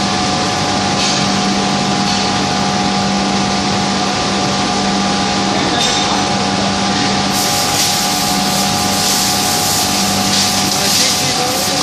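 Loud, steady industrial machinery noise: a constant hum with several fixed tones under a broad rushing noise. A brighter, hissing layer joins about seven seconds in.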